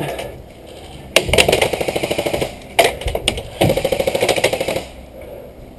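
Airsoft rifle firing on full auto in two rapid bursts of about a second each, with a single sharp click between them.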